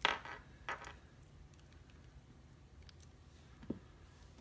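Small sharp clicks from metal keys and padlocks being handled: a crisp click at the start, a second one under a second later, and a faint tick near the end.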